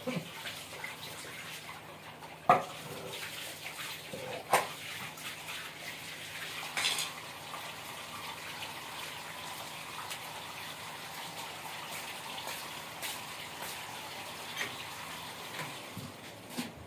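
Water running steadily from a hose onto a concrete floor, with a few sharp knocks. The loudest knock comes about two and a half seconds in, and another about two seconds later.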